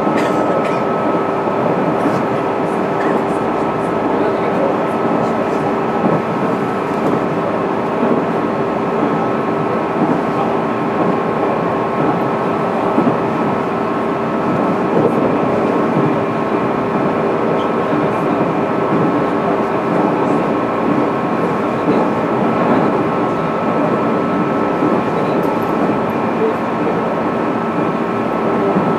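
Interior running noise of a JR East 205-series electric multiple unit, heard in motor car MoHa 205-612: a steady rumble of wheels on rails with a few steady humming tones over it. The train is running at an even speed.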